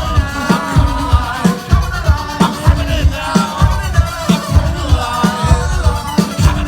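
Live rock band playing, with a steady drum beat of about three hits a second under sustained pitched instrumental lines.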